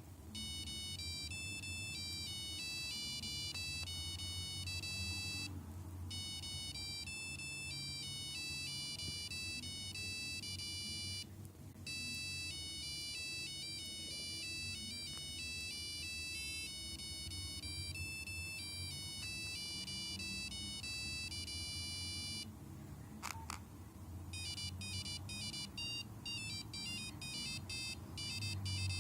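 Nokia 5125 mobile phone playing monophonic ringtone melodies, one beeped note at a time. A tune plays and repeats after short pauses. Then, after a click near the end, a different, faster tune starts.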